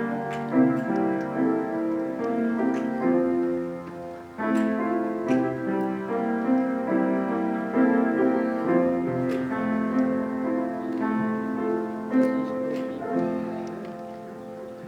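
Solo piano playing slow, held chords that change every second or so, fading out near the end.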